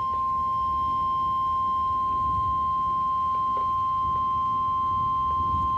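NOAA Weather Radio 1050 Hz warning alert tone: a single steady, unbroken high tone, the attention signal that comes before a National Weather Service warning message.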